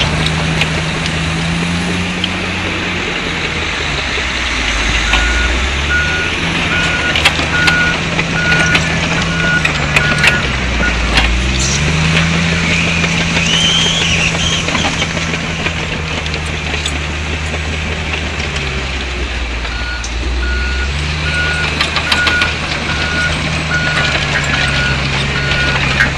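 Komatsu D65EX crawler dozer's diesel engine working under load, its pitch dropping and climbing again several times, with a reversing alarm beeping steadily in two runs and scattered sharp clanks.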